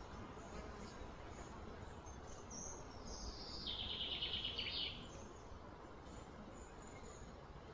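Faint outdoor background noise with a high, buzzy, rapidly pulsing trill that starts a little under three seconds in, steps down in pitch and lasts about two seconds, plus a few faint high chirps.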